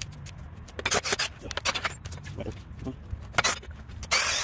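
Scattered handling rustles and clicks, then near the end a cordless drill/driver runs for about half a second, driving a screw through a handrail's steel base plate.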